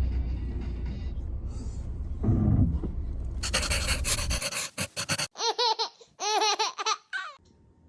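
A young child laughing: a run of high-pitched, breathy giggles in the second half. Before them a steady low rumble, like a car heard from inside, cuts off about four seconds in.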